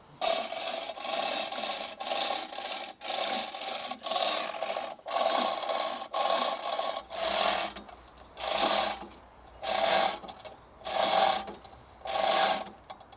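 Hand chain hoist on an A-frame being hauled pull by pull to lift a heavy stone grave plinth, its chain rasping through the block in rhythmic strokes about once a second. The strokes become separate, evenly spaced pulls about halfway through.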